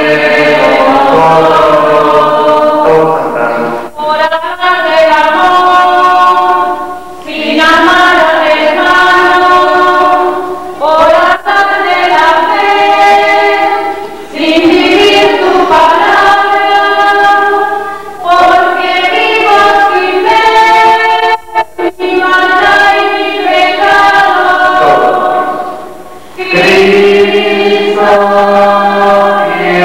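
A church congregation singing a hymn together, in phrases of three or four seconds with short breaks between them.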